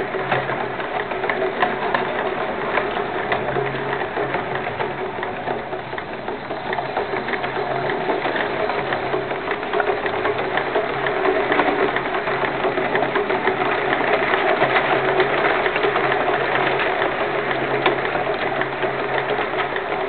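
Miniature compressed-air (pneumatic) model locomotive running, its cylinders and valve gear making a rapid, steady clatter over a steady low hum.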